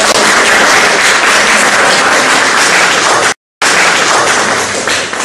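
Audience applauding, a dense patter of many hands. About three and a half seconds in it cuts out for a split second, then the applause resumes and fades toward the end.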